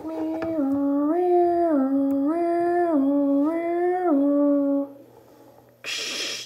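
A person humming a short tune of a few held notes that step up and down in a repeating pattern for about five seconds. A brief hiss follows near the end.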